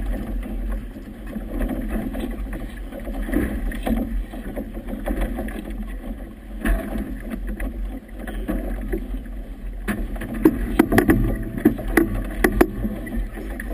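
Wind buffeting the microphone and choppy water splashing against a small boat's hull in moderate-to-strong wind. A run of sharp slaps and knocks comes in the last few seconds as the boat meets the chop.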